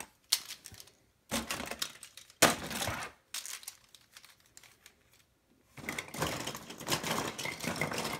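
Lego Bionicle plastic pieces clattering and rattling against each other and the plastic tub as handfuls are scooped and stirred. There is a burst of rattling about a second in, a quiet spell near the middle, then steady rattling from about six seconds in.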